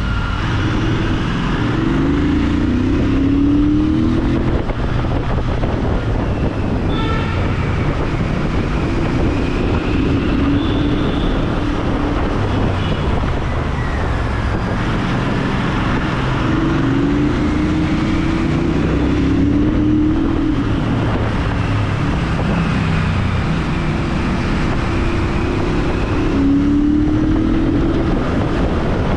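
Royal Enfield Interceptor 650's 648 cc parallel-twin engine running through its stock exhaust while being ridden through a tunnel. The engine note climbs in pitch about four times as the bike pulls through the revs.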